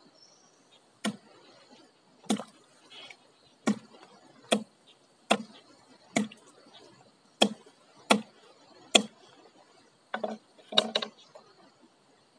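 A freshly caught spiny eel (chạch lấu) being struck to stun it so the hook can be taken out without its back spines stabbing the hand. About a dozen sharp knocks come roughly once a second, with a quick double knock near the end.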